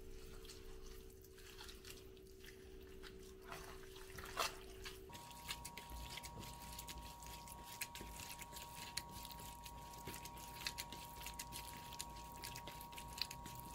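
Faint wet squishing and small clicks of a bare hand kneading a raw minced-meat, onion and olive-oil pide filling in a bowl, over a steady hum that jumps to a higher pitch about five seconds in.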